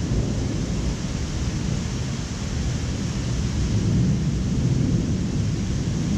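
Low rolling thunder rumbling on under a steady hiss of rain, swelling a little about four seconds in.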